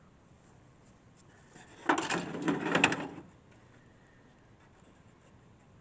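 A brief rattling scrape lasting about a second, starting about two seconds in, like something being slid or handled.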